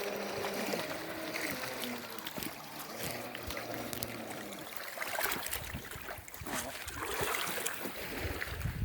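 Distant whine of a Traxxas remote-control boat's electric motor, dropping in pitch over the first two or three seconds as it eases off, then water lapping, with a low wind rumble near the end.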